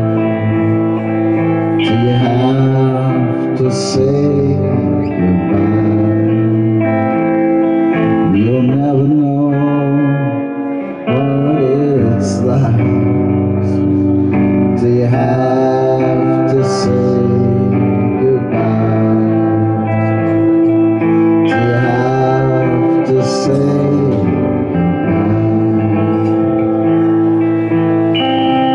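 A man singing over his own electric guitar, with long held notes over sustained chords.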